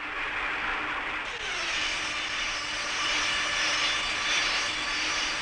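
Sawmill band saw and its machinery running with a steady whine. About a second and a half in, one tone slides down in pitch and then holds steady under higher ringing tones.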